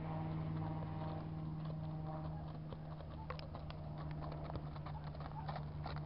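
Hoofbeats of a palomino Quarter Horse walking on a dirt arena, growing louder and more distinct in the second half as the horse comes close. A steady low hum runs underneath.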